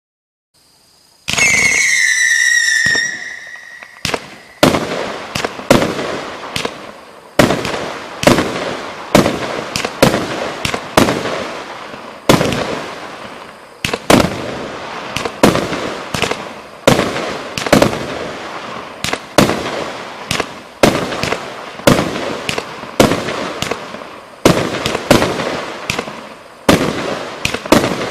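A 146-shot consumer firework cake ("2 Mins Potted Cake", LF-25146-1) firing. About a second in, a loud whistling shot sounds for about two seconds, its pitch falling slightly. Then comes a steady run of sharp bangs as shots launch and burst, one or two a second, each trailing off.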